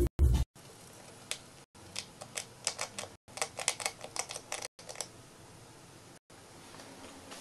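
A hamster gnawing a hard biscuit: bursts of quick, crisp clicks, several a second, from about a second in, thinning out after about five seconds.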